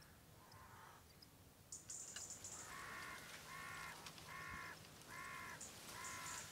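A crow cawing five times in an even series, starting a little under three seconds in, with a faint high hiss alongside.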